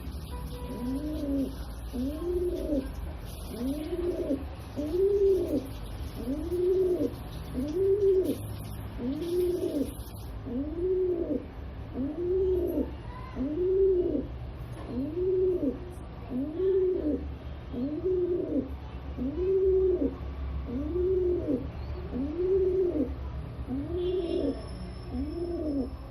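Rock pigeon cooing in a steady series, one rising-and-falling coo about every second and a half, over a steady low hum.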